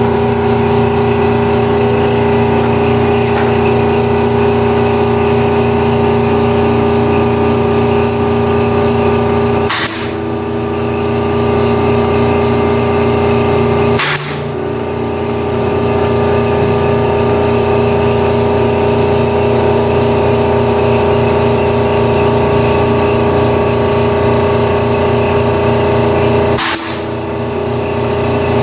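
Air compressor for a pneumatic nail gun running with a steady drone, broken by three sudden clicks after which the hum shifts slightly.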